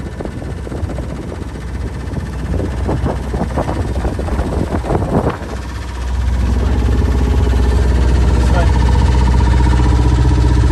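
Small motorboat under way: wind and water noise with a run of irregular knocks, then, about six seconds in, the boat's engine running loud and steady.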